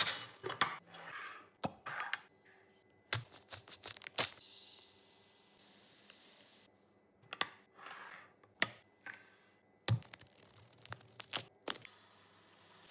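Groceries and food containers being handled and set into a refrigerator: a run of irregular sharp clicks and knocks as items are put down, with packaging rustling and crinkling between them and a longer rustle around the middle.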